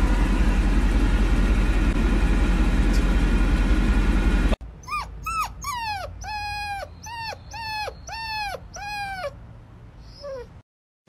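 Steady loud rumble of a car's engine and cabin noise, cut off suddenly after about four and a half seconds. Then a puppy gives a string of about eight short, high whines in quick succession, each rising and then falling in pitch.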